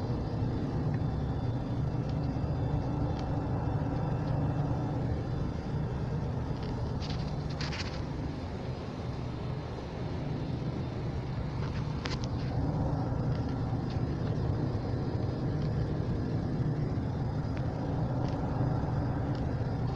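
Steady drone of a jet airliner heard from inside the passenger cabin during descent: engine and airflow noise. A few brief clicks come through it.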